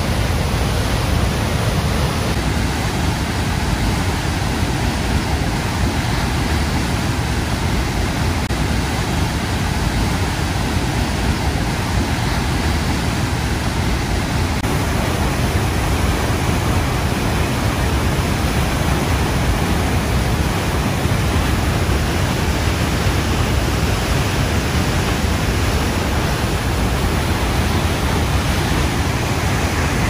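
Huka Falls on the Waikato River: a steady, unbroken rush of high-volume whitewater pouring through the narrow rock chute and over the falls.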